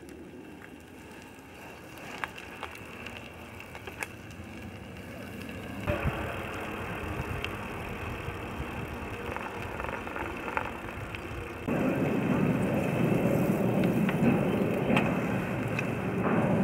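Wind rushing on the microphone and the rolling noise of a group of bicycles riding along a paved path, with a few faint clicks. The noise steps abruptly louder about six seconds in and again about twelve seconds in.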